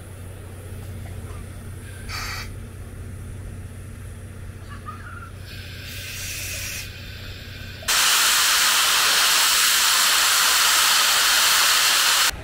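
Steam locomotive JNR 8630 (Class 8620) blowing off steam. A few short hisses over a low steady rumble give way, about eight seconds in, to a loud continuous hiss of steam that cuts off abruptly near the end.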